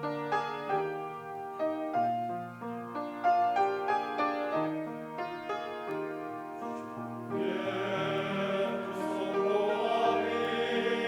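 Piano playing the introduction of a Korean gospel hymn, single notes and chords struck and left ringing; a little over seven seconds in, singing voices join over the piano.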